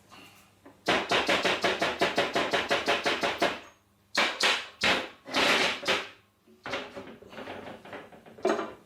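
Hammer tapping a metal part into a fitting: a quick run of ringing metal strikes, about five a second, then a few longer, louder noises and some lighter taps near the end.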